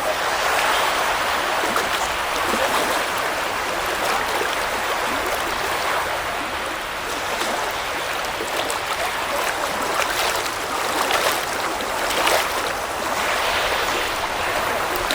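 Black Sea waves washing onto the shore in a steady wash of water, with brief splashes through it.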